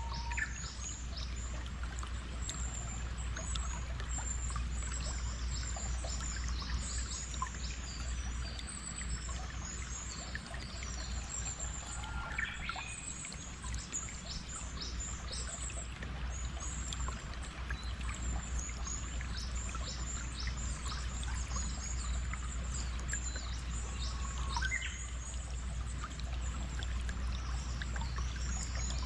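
Flowing stream water with many birds chirping over it. Two louder whistled bird calls stand out, one near the middle and one near the end.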